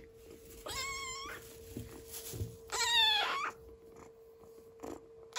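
Small grey kitten mewing twice, high wavering cries about two seconds apart, over a faint steady hum.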